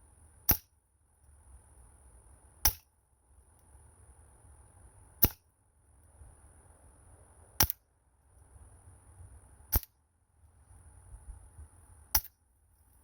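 Air gun shots: six sharp cracks, one about every two to two and a half seconds.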